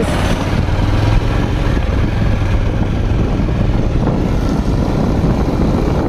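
A moving vehicle: a steady, loud rushing noise with the low, even drone of its engine running.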